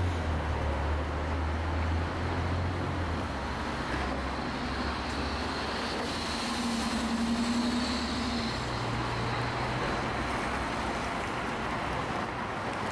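City street traffic with a low engine hum, and an articulated city bus driving past close by around the middle, its engine and a held whine standing out over the traffic noise.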